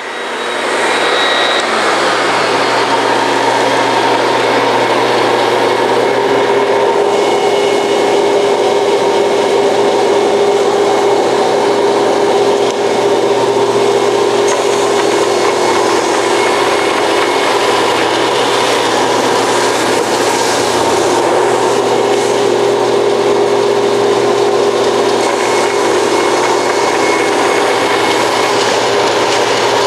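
Forrest Model 230 vertical bandsaw running and cutting through a flat workpiece: a steady sawing noise with a constant hum. The dust collection system is switched off.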